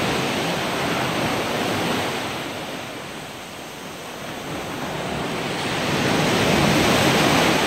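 Ocean surf breaking and washing up a sand beach. The noise ebbs to its quietest about halfway and swells again as the next wave comes in.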